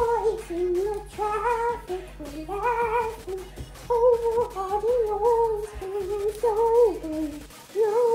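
A child singing a tune in a high voice, wordless or with unclear words, in held notes that waver up and down, with short breaks between phrases.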